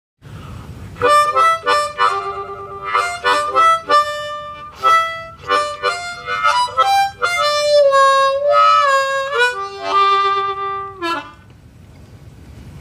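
A diatonic harmonica played with cupped hands: a quick rhythmic phrase of short notes and chords, then a long held note whose pitch bends, stopping about eleven seconds in.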